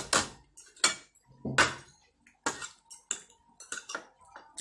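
Metal forks and spoons clinking and scraping against ceramic plates: a string of sharp clatters, irregular and roughly one every half second to a second.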